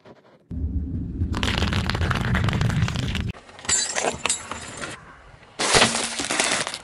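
A car tyre rolling slowly over objects on asphalt and crushing them. First comes a low rumble with crackling. Then two separate bouts of sharp cracking and crunching, the first as metal jingle bells are flattened and the second as a clear plastic item gives way.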